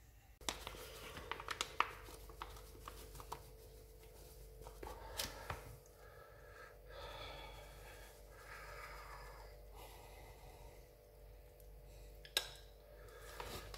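Flour being sifted through a metal mesh sieve onto a plate: soft rustling and scraping from the mesh, with scattered light clicks and taps.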